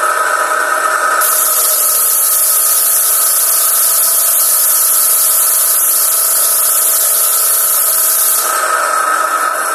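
High pressure washer running, its water jet spraying with a loud steady hiss over a steady machine whine. The hiss is strongest from about a second in until near the end, when it eases and the whine comes forward.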